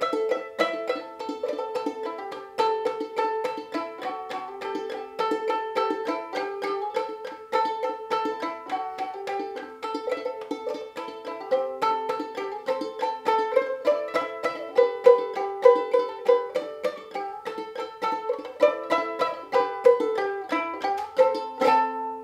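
Gold Tone banjo ukulele played clawhammer style: a quick, even run of picked notes and brushed strings playing a fiddle tune in A minor, with no singing. Near the end it closes on a final struck chord that rings on.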